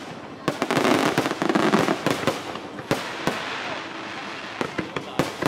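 Aerial fireworks display: a dense run of bangs and crackling, loudest in the first two seconds, settling into steady crackle with single sharp bangs about three seconds in and near the end.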